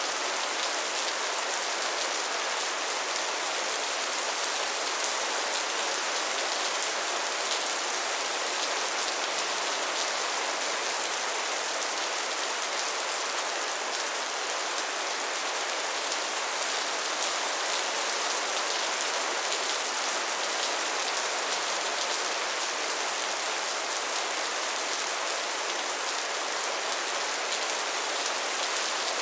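Soft steady rain falling, an even hiss with fine pattering of drops.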